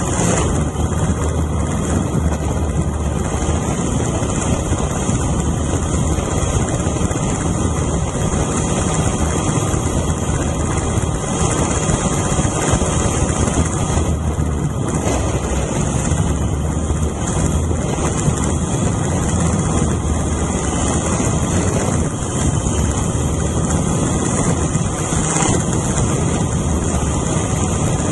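A drone's electric motors and propellers running steadily in flight, heard close up from a camera mounted on the drone. The sound is a constant high whir over a low hum, with no change in pitch or level.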